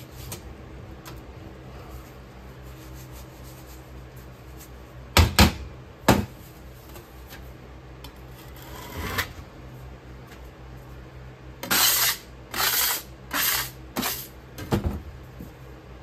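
Two sharp knocks about five and six seconds in as a wooden rammer packs foundry sand into a small mould flask. Near the end come four or five short scraping strokes as a metal blade strikes the excess sand off the flask face.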